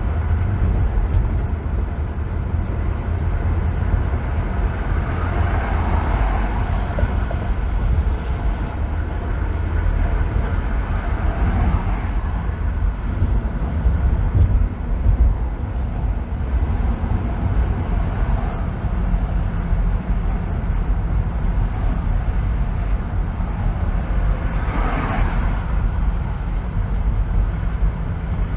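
Steady road and tyre noise of a car driving on a freeway: a deep, constant rumble with a hiss above it, swelling briefly twice.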